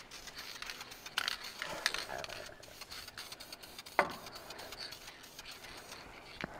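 Faint handling noises on the engine: rubbing and scraping with scattered light clicks, and one sharp knock about four seconds in.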